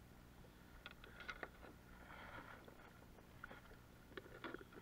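Faint, quiet sound of water lapping at a sit-on kayak's hull, with a few small clicks and knocks from fishing tackle being handled about a second in and again near the end.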